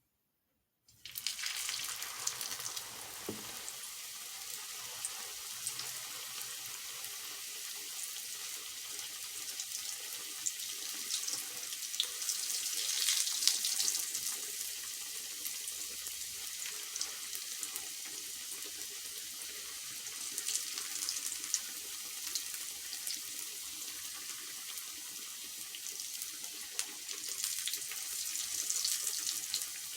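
Rolled potato taquitos frying in hot oil: a steady, dense sizzle with fine crackling, starting suddenly about a second in and swelling twice.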